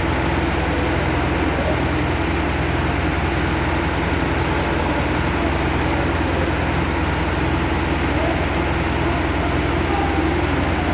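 Heavy engine running steadily at a constant speed: an even low drone with no changes.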